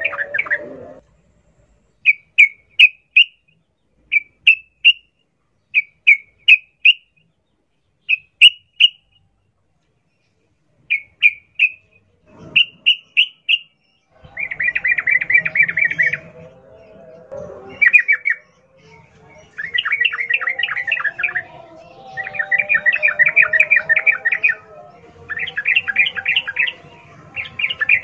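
Sooty-headed bulbul singing. It opens with short groups of three or four quick rising chirps separated by silences, then from about halfway breaks into long, fast, rattling trills of repeated notes over softer, lower background calls.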